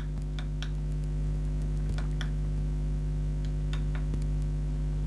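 Steady electrical mains hum with a stack of overtones, with faint irregular clicks scattered through it.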